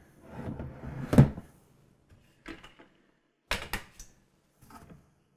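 Hard plastic planter pots and wooden plant caddies on casters being handled on a countertop: a short rub, a sharp knock about a second in, then a quick run of three or four knocks about halfway, with softer knocks near the end.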